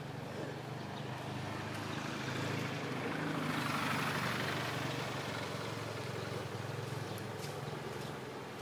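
A motor vehicle passing by: its engine and road noise swell to a peak about four seconds in, then fade, over a steady low engine hum.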